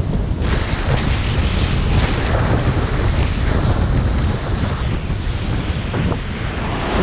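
Heavy wind noise on the microphone while riding a kiteboard, with water rushing and splashing against the board.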